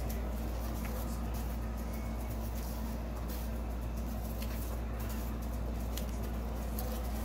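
A steady low hum, with faint light rustles and taps of paper sheets being flipped through by hand.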